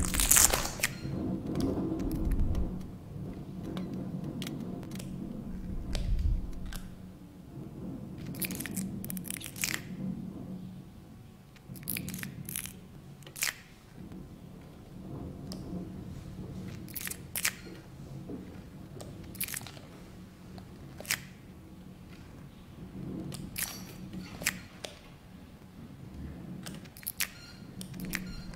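Live-manipulated sound-art mix of house sounds: sparse, irregular sharp clicks and crackles over a low steady hum, with a deep rumble at the start and again about six seconds in.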